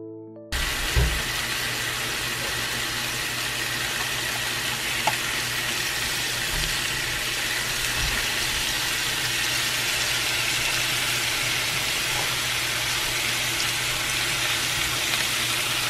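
Beef slices, shiitake mushrooms and vegetables sizzling steadily in a hot frying pan, starting abruptly about half a second in, with a few soft low knocks along the way.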